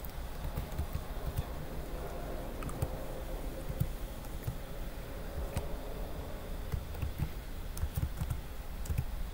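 Typing on a computer keyboard: irregular key clicks, over a steady low hum.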